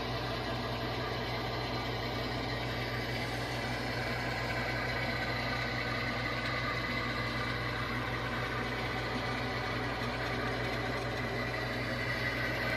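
ESU LokSound decoder playing a GE diesel locomotive's prime mover idling steadily through the HO model's small speakers.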